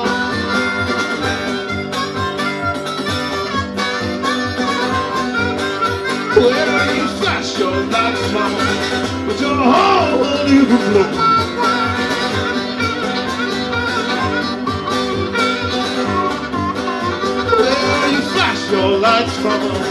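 Live blues played on harmonica and acoustic guitar: the harmonica plays a lead line with bending notes over a steady strummed guitar rhythm.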